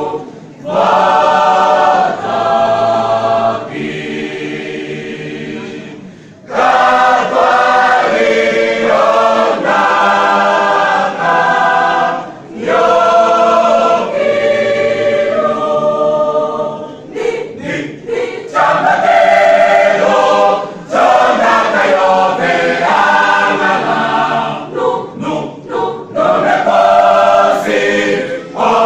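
Church choir singing in phrases with short breaks between them, with a softer passage a few seconds in.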